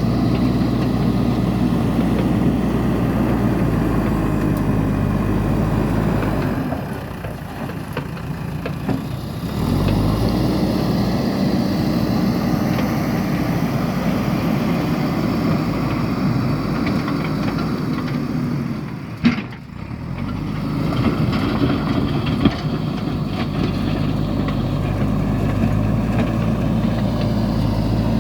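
Backhoe loader's diesel engine running steadily, dropping lower twice for a couple of seconds, with a sharp knock about two-thirds of the way through.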